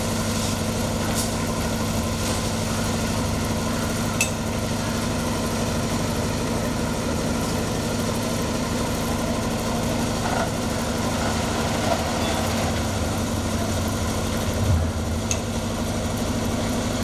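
Engine of a site concrete mixer running steadily, a low even hum, with a few brief clicks and knocks from the work at the mixer.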